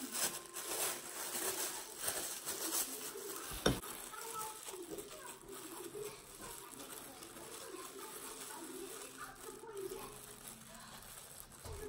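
Thin plastic food-prep glove crinkling as it is pulled onto a hand, followed by a single sharp click about four seconds in, with faint voices in the background.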